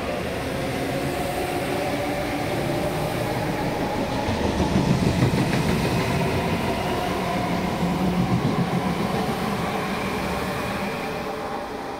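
MTR Tung Chung line A-train (Adtranz-CAF electric multiple unit) running past: wheel rumble under a steady motor whine. It grows loudest about five seconds in and again a little later as the cars go by, then eases off near the end.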